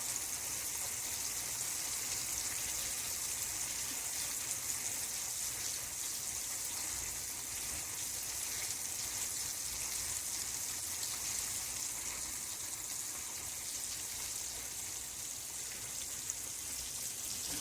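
Chicken tenders frying in hot oil: a steady, even sizzle with a faint crackle.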